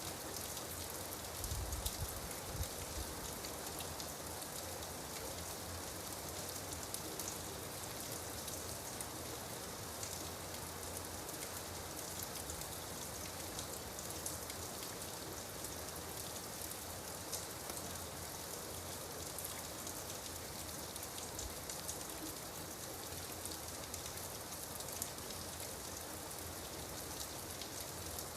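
Steady rain falling, with many small drops pattering on a surface. A brief low rumble about two seconds in.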